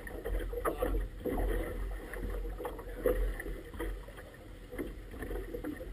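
Small river chop slapping and splashing irregularly against the rubber tube of an inflatable boat, over a low rumble of wind buffeting the microphone.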